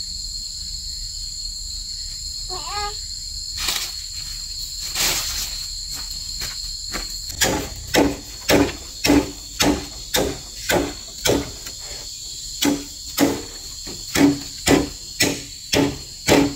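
A steady high drone of insects throughout. From about halfway, a run of hollow knocks on bamboo comes about two a second, with a short pause partway through.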